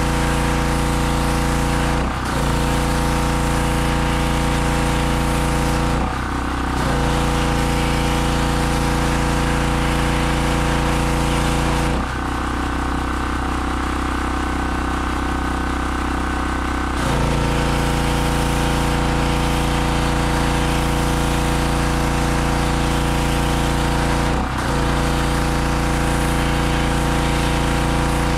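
A Harbor Freight 2500 PSI pressure washer's 160 cc gas engine running steadily, with the hiss of the water spray over it. Three times the sound dips briefly, and for about five seconds in the middle the hiss falls away and the engine note changes.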